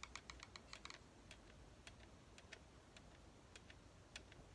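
Faint clicking in near silence: a quick run of about eight clicks in the first second, then scattered single clicks every half second or so.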